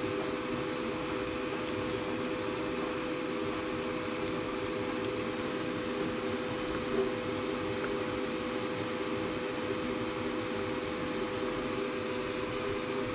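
Steady fan hum with a steady mid-pitched tone and a few fainter tones under it, from a powered-on Glowforge Pro laser cutter's fans running.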